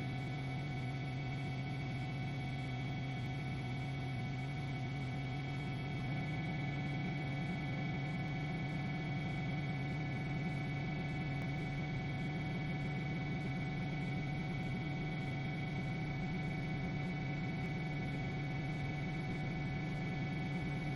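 A steady hum made of several constant tones, unchanging in pitch and level.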